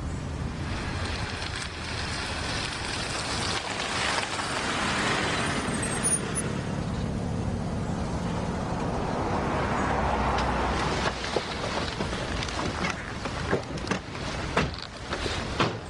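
A car engine and tyres as an SUV drives up and pulls in to park, swelling as it comes closer. Near the end come a car door and a string of sharp clicks.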